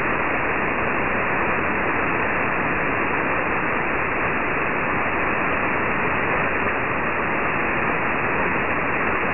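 Steady shortwave band noise from an RFSpace SDR-IQ receiver tuned to 10255 kHz in upper-sideband mode, with no signal on the channel yet. The hiss sounds muffled, its top end cut off by the receiver's narrow sideband filter.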